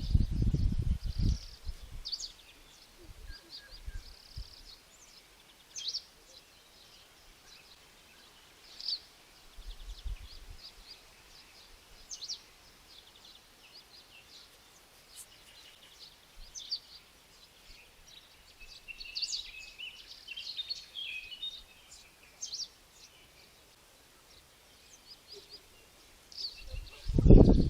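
Small birds chirping and trilling, short high calls scattered throughout and busiest a little past the middle. A loud low rumble in the first second or so and again near the end.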